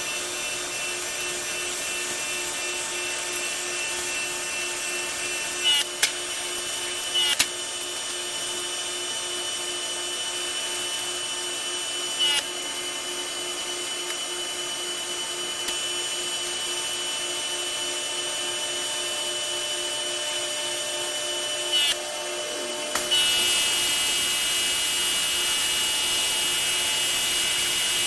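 Pressure washer running, with a steady motor whine under the hiss of the water spray and a few short clicks. Near the end the spray noise jumps up, louder and harsher.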